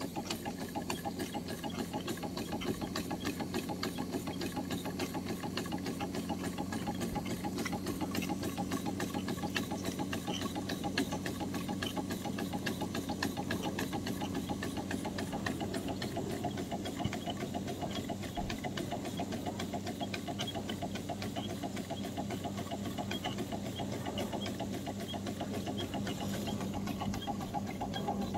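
Several live-steam model engines (Stuart beam and half beam engines and a school engine driving a small dynamo) running together: a steady, rapid clatter of exhaust beats and valve gear over a steady low hum, with a little steam hiss.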